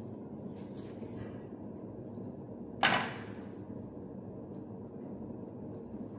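A single sharp knock about three seconds in, fading quickly, over steady low background noise.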